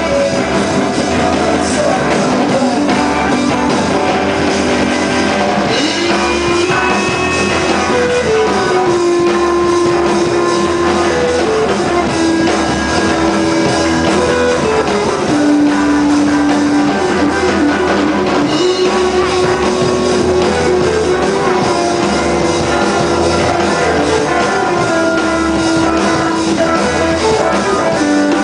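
A rock band playing live: electric guitars over a drum kit. A lead line of long held notes slides from pitch to pitch throughout.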